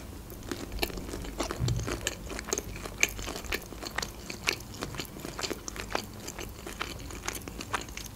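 Close-up chewing of a mouthful of pomelo flesh: irregular small clicks and crunches of the mouth, several a second.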